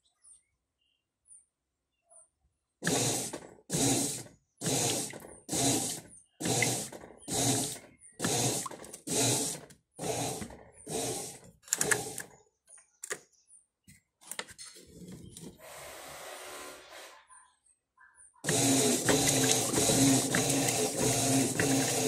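Electrolux 12 kg top-loading washing machine agitating a load of water and clothes: a rhythmic swishing stroke about one and a half times a second, then after a lull the motor runs continuously with the water churning, louder.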